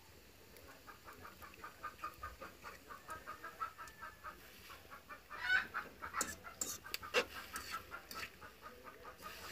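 A bird clucking in a fast, even series of short calls, about five a second. A little past the middle there is one louder call, followed by a few sharp knocks.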